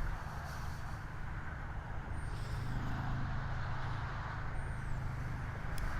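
Wind rumbling on the microphone, with a few faint bird chirps and a single sharp click near the end.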